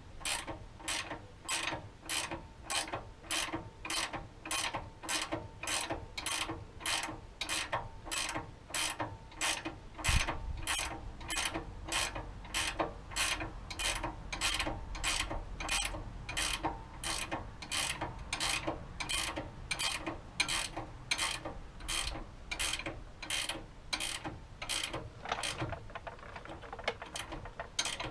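Hand ratchet wrench clicking in steady back-and-forth strokes, a little under two a second, as a suspension nut is run on. One louder knock about ten seconds in.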